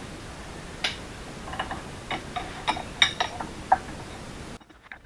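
A scattering of light metallic clicks and clinks of tools and hydraulic fittings being handled, about ten over a couple of seconds. The background hiss drops away suddenly near the end.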